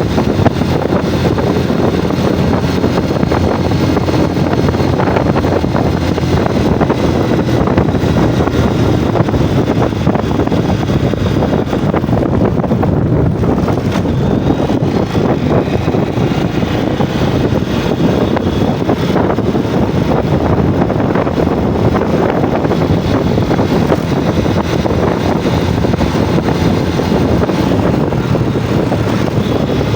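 Yamaha Jupiter MX's single-cylinder four-stroke engine running steadily under way, heard on board while riding, with wind buffeting the microphone.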